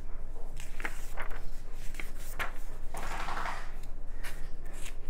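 Glossy magazine pages being turned and handled: a few soft taps and a papery rustle about three seconds in, over a steady low electrical hum.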